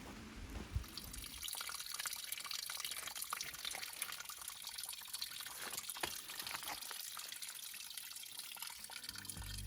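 Rain falling on the leaves of a dense forest canopy: a steady soft hiss of rain with many small, separate drop ticks.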